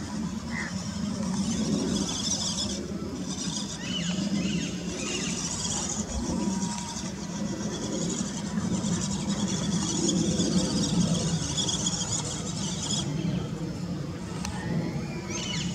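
Electric motor and gearbox of a 1/16 scale WPL Toyota Hilux RC truck running as it crawls over grass and rocky ground, the sound swelling and easing with the throttle.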